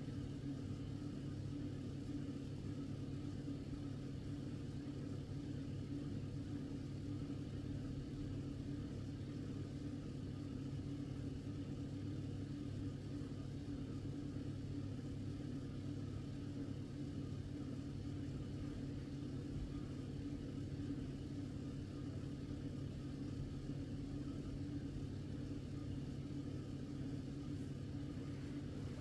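A steady low hum that holds the same level throughout, with its weight in the low range and no distinct events.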